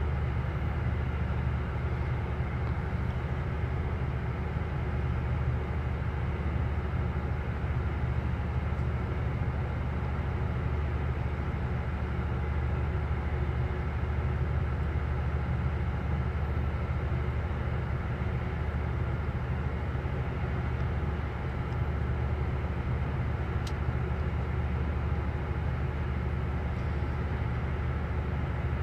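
A car ferry's engines droning steadily while under way, a low, even hum that does not change.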